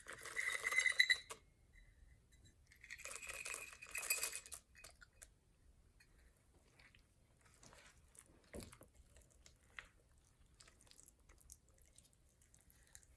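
A metal utensil scraping and clinking against cookware in two bursts of about a second and a half each, with a ringing tone, followed by light scattered clicks.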